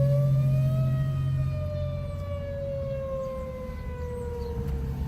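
Outdoor tornado warning siren wailing: its pitch rises slowly for about the first second, then falls slowly for the rest. A steady low hum underneath fades out about a second and a half in.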